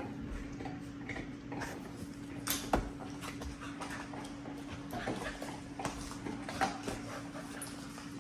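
Two dogs playing rough: scuffling, paws and bodies knocking and scraping on the pen's mat, with brief dog vocal sounds. A steady low hum runs underneath.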